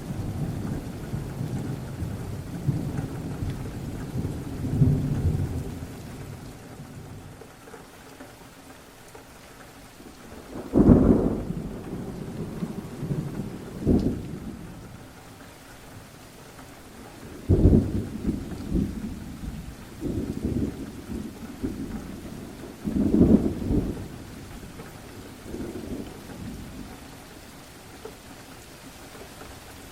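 Thunderstorm: steady rain with repeated rolls of thunder. Low rumbling fades over the first few seconds, then louder claps come about 11, 14, 17 and 23 seconds in, each dying away into the rain.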